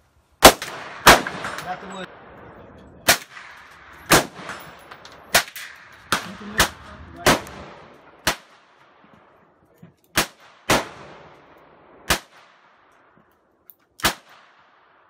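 Gunshots on a firing range: about a dozen single shots at irregular intervals over fifteen seconds, the first few followed by a long, ringing echo.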